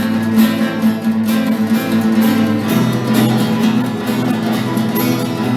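Instrumental section of a rock song: guitar strummed in a steady rhythm over sustained bass notes, with no singing.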